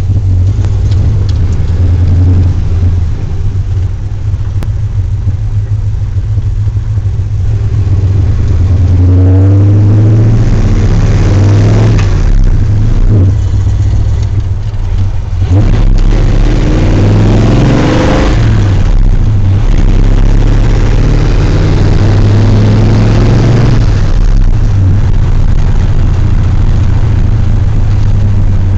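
1957 Chevy gasser's engine heard loud from inside the car while driving. Its low note rises in pitch as it accelerates a few times, about ten, twelve and eighteen seconds in, dropping back between pulls as it goes through the four-speed's gears.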